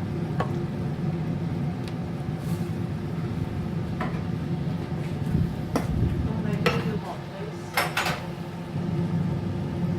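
A metal utensil clinking and scraping against a cooking pot while a curry is stirred, with about seven sharp knocks, two close together near the end, over a steady low hum.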